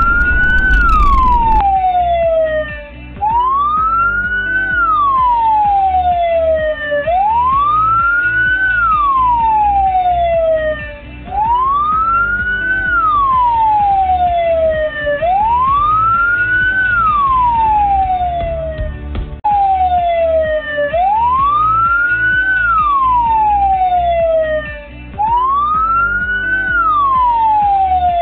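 Electronic emergency-vehicle siren wailing in a repeating cycle: each cycle rises quickly in pitch and then falls slowly, about every four seconds.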